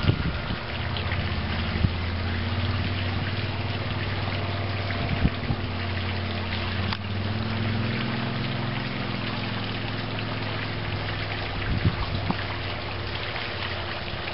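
A boat motor running steadily at low speed, with water lapping and a few short knocks.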